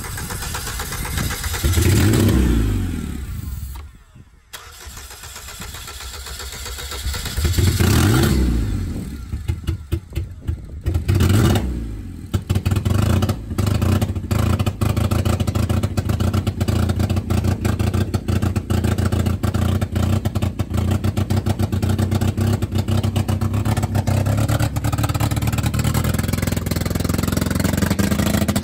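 Fuel-injected engine of a stripped-down demolition-derby car catching and revving twice, dying back down after each, then sputtering and stumbling for a few seconds before settling into a steady run.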